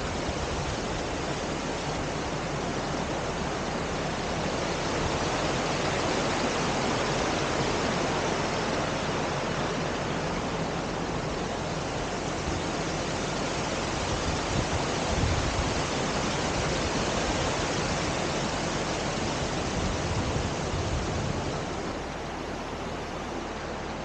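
Creek water rushing steadily over rocks in small rapids, with a few low knocks and thuds; the rush drops a little in level near the end.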